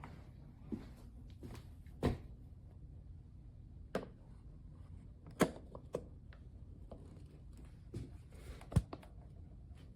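Light, irregular knocks and clicks, about seven in all, the sharpest near the middle and near the end, over a low steady hum.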